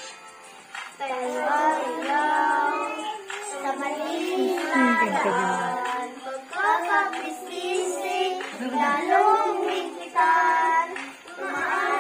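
Children singing a song together in a small room, starting about a second in.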